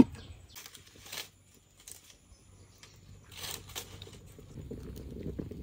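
A lid is set down on a clay pot with a single sharp clack. A few seconds later comes light rustling and scraping as dry sticks are handled, with a low rumble underneath near the end.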